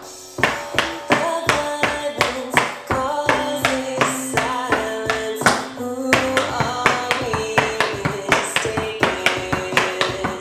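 Tap shoes striking a wooden tap floor in quick, rhythmic runs of taps, danced over a rock song with a singing voice.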